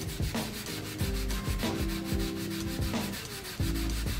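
Steel wool pad scrubbed back and forth by hand over a griddle's steel cooktop, about two strokes a second, scouring off rust spots.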